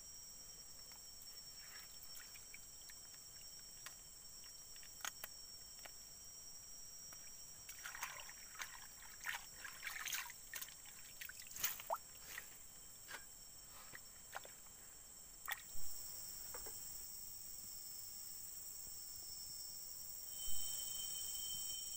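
Stream water splashing, trickling and dripping as leafy greens are swished and rinsed by hand to wash the soil off their roots, with a cluster of small splashes in the middle. A steady high insect buzz sounds underneath.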